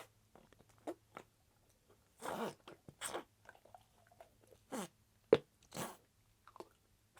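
Slightly damp Flarp noise putty being worked by hand to force air out, giving an irregular string of wet squelches and short fart-like noises, some falling in pitch, with a sharp pop a little past five seconds in.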